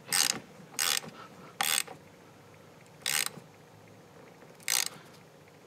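Socket ratchet wrench with a 10 mm socket tightening a car battery terminal clamp nut: five short bursts of ratchet clicking on the back-strokes, coming further apart toward the end.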